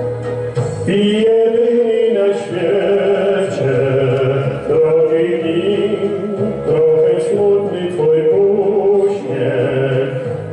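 A man singing a song into a handheld microphone, amplified through the stage speakers, with held, sustained notes over instrumental accompaniment.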